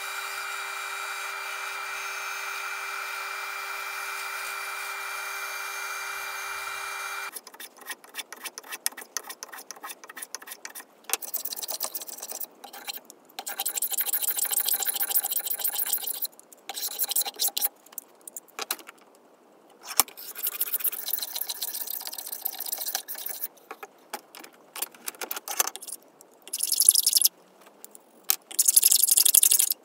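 A bandsaw runs steadily for about seven seconds while an oak bracket foot is cut, then stops abruptly. After that come repeated short strokes of hand tools shaving the oak, mostly plane passes, in bursts of a second or two with clicks and knocks between them.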